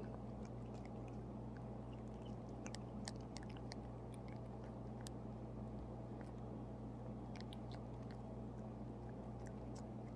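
A cat licking and mouthing the tip of an oral syringe of liquid medicine: faint, wet little mouth clicks in small scattered clusters.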